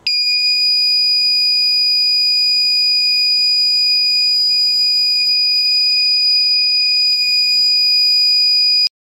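Buzzer of a homemade fire alarm sounding one loud, steady, high-pitched tone that starts suddenly and cuts off near the end. The alarm circuit has closed because heat burned the plastic separating its two wires.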